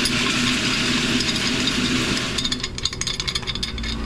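Pipe wrench gripping and turning an overtightened water-filter housing: a steady scraping rasp, then a run of rapid clicks and rattles about two and a half seconds in.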